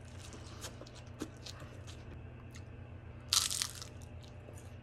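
Close-up eating sounds: scattered crackles of chewing and biting, then one loud crunchy bite a little over three seconds in, over a low steady hum.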